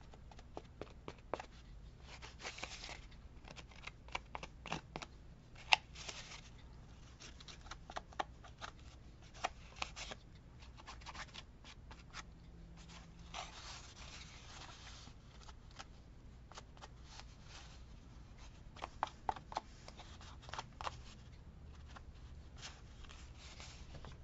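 Scattered light taps, clicks and rustles of craft materials being handled and worked at a table, with a longer rubbing rustle about halfway through, over a faint low hum.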